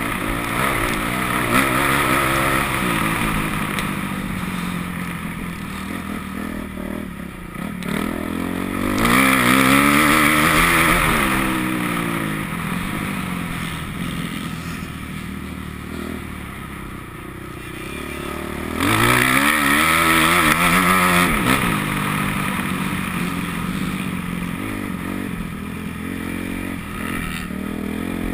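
Motocross bike engine under hard riding, revving up in rising sweeps and easing off; it surges loudest twice, about a third of the way in and again just past halfway.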